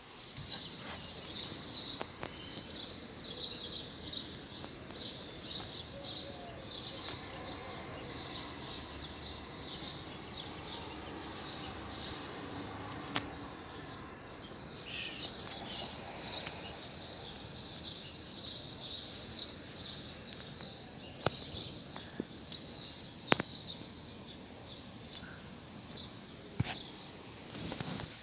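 Small birds chirping: many short, high chirps in quick irregular runs, with a few sliding calls and occasional sharp clicks.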